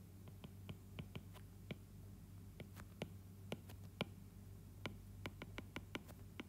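Faint, irregular clicks of a stylus tapping on a tablet screen while handwriting, over a low steady hum.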